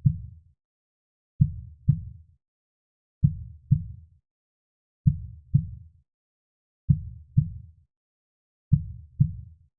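Heartbeat: low lub-dub double thumps, the two beats of each pair about half a second apart, repeating slowly about every two seconds.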